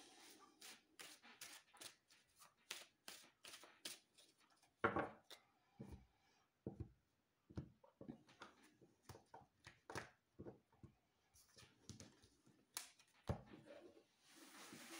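A deck of tarot cards being shuffled by hand, a quick run of card clicks for the first few seconds. Then come scattered single taps as the deck is cut and set down on the table, and a soft rustle near the end as the cards are slid out into a spread.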